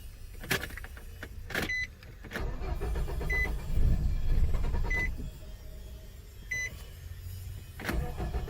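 Starter motor cranking the 2007 Nissan Frontier's 2.5-litre four-cylinder engine, which turns over without catching: a crank-no-start, which the mechanic suspects is a fuel delivery problem. A short electronic beep sounds four times, about every second and a half, with a few clicks in between.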